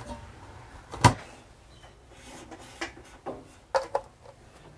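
Kitchen handling sounds: one sharp knock about a second in, then several lighter clicks and knocks, as a stainless steel pot holding fish is handled in a metal sink.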